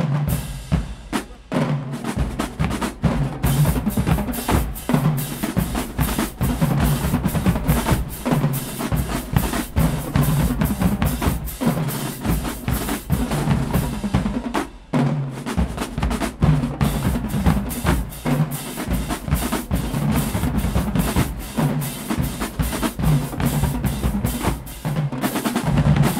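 Marching band drumline playing a loud, fast cadence on snare drums, tenor drums and bass drums. It starts abruptly and breaks off briefly about fifteen seconds in before carrying on.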